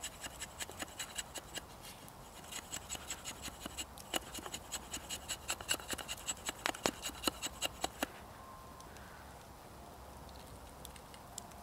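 Knife blade shaving curls off a split wooden stick to make a feather stick: quick repeated scraping strokes, a few a second, that stop about eight seconds in.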